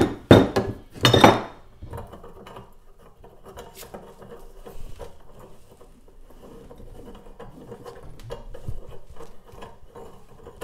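A ball-peen hammer strikes a steel chisel wedged in the slit of a seized freewheel's inner body three times, sharp metallic clanks within the first second and a half, spreading the cut. Then quieter metal scraping and clicking as the split freewheel is worked loose and unscrewed from the hub's fine threads.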